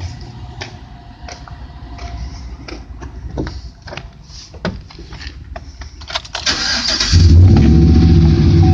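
A series of light clicks and knocks, then about six seconds in the starter cranks briefly and the Chevrolet Silverado's 5.3-litre V8 catches and settles into a loud, steady idle through dual Flowmaster 40-series mufflers.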